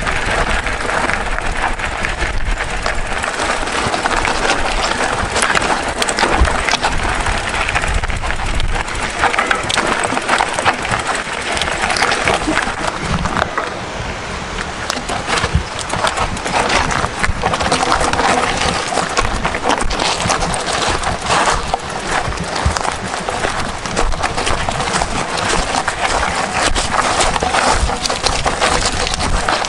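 Mountain bike rolling over a rough gravel track: continuous tyre crunch and rattle, with many small knocks from the stones.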